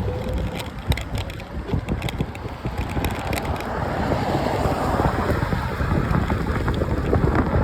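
Bike tyres rolling over rough, gritty ground, a dense crackling and crunching, with wind buffeting the microphone; it grows louder about halfway through.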